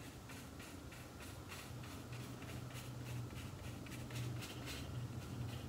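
Paintbrush strokes on a painted board, heard as faint, quick, irregular scratches and taps of the bristles dabbing acrylic paint.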